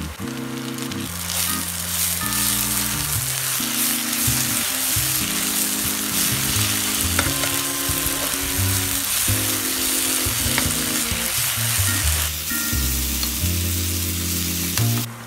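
Sliced onions sizzling loudly in hot oil in a frying pan while a ground masala paste is stirred in with a spatula, with a few scraping clicks of the spatula on the pan. The sizzling eases off about three seconds before the end.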